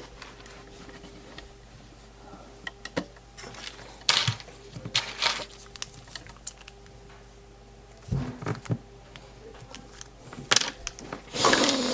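Small plastic toy pieces being handled and bent: scattered clicks and short crinkling rustles, with a faint steady hum underneath.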